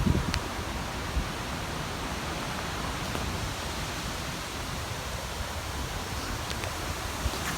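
Wind blowing through trees: a steady rustling hiss with a flickering low rumble of wind on the microphone, and a few faint ticks.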